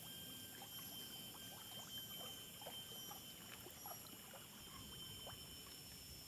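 Faint water sloshing and dripping: small scattered splashes and trickles as people move and handle lines in lake water, over a thin steady high tone.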